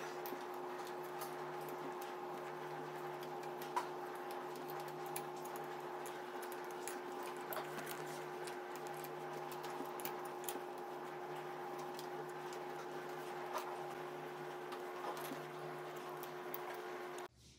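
A steady hum made of a few fixed tones, with faint clicks and ticks scattered through it. It cuts off suddenly near the end.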